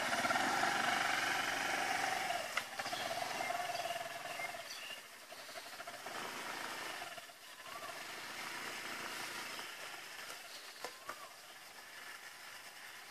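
Small motor scooter's engine running as it rides away along a dirt track, fading steadily over the first few seconds until only a faint hum remains.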